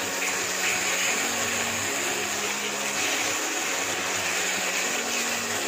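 Thick onion-tomato masala for aloo dum frying down in a nonstick kadai with a steady sizzle as it is stirred, the spice paste near fully cooked.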